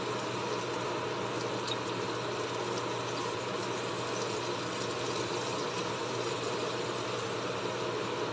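Onion pieces sizzling steadily in hot oil in a frying pan, with a dense crackle and a steady low hum underneath.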